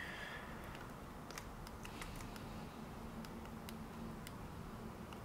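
About a dozen faint, irregular clicks at a computer desk over low room hiss, from keys or a pen tablet being worked.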